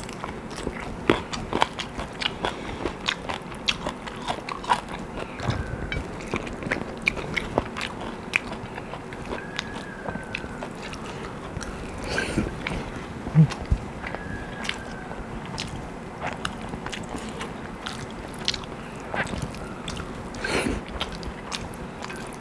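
Close-up sound of a person eating butter chicken and rice with the fingers: chewing and mouth smacks, with many short sharp clicks scattered throughout.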